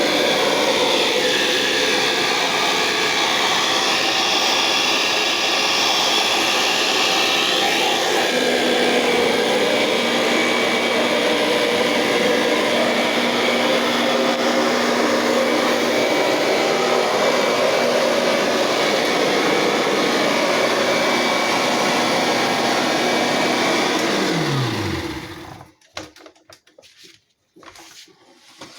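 Kirby Sentria G10D upright vacuum cleaner running steadily at full power, then switched off about 25 seconds in, its motor winding down with a falling pitch. A few faint clicks follow.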